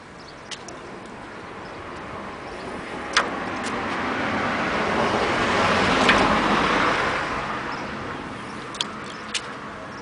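A car passing by: its noise builds steadily to a peak about six seconds in, then fades away. A few short sharp clicks sound over it.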